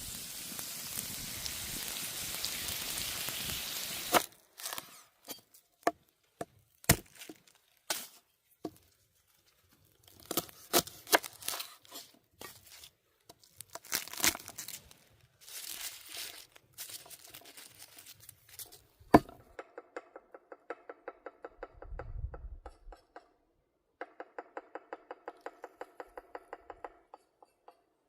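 Cooking and food-preparation sounds. A steady sizzling hiss for about four seconds gives way to scattered knocks and clatter. Near the end come two runs of quick, even chopping on a board, about four strokes a second.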